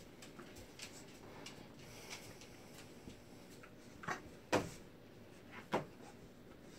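Two Mastador puppies wrestling on a bed: soft scuffling with small ticks, then three short sharp sounds in the second half, the middle one the loudest.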